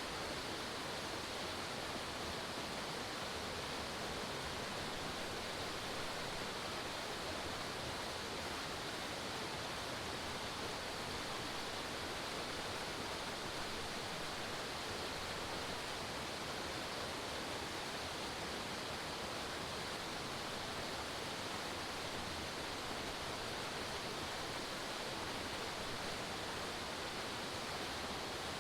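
Forest waterfall: a steady, even rush of falling water that does not change.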